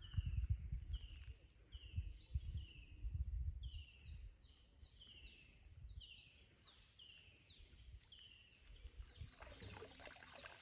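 A bird calling over and over in short, high falling notes, evenly spaced, with wind rumbling on the microphone in the first few seconds. Near the end, water splashes and drips as a cast net is drawn up out of the water.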